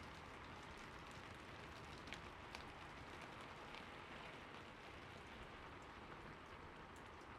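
Faint, steady water ambience: falling water splashing with a soft, even hiss and scattered small drips.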